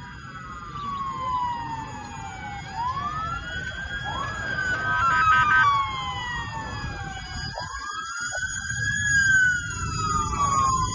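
Several emergency-vehicle sirens wailing at once, their rising and falling wails overlapping, with a short two-note hi-lo stretch about five seconds in, over a low rumble.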